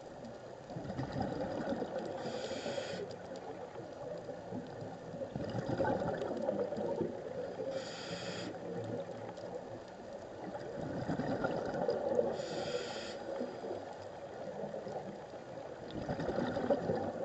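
A scuba diver breathing through a regulator underwater: three short hissing inhalations about five seconds apart, with bubbling exhalations between them.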